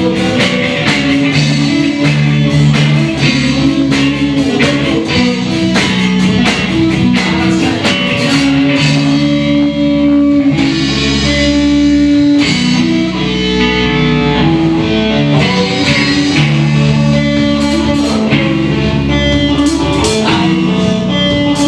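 Rock music: electric guitars over bass and a drum kit, played steadily and loudly.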